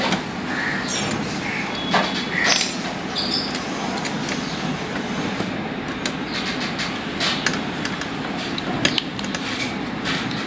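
A few small clicks as a presser foot is handled and fitted on an Usha Janome Excella sewing machine, over a steady background noise.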